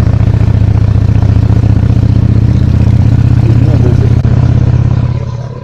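Honda Shadow V-twin motorcycle engine running steadily under way, heard from the bike's onboard camera, then dying away near the end.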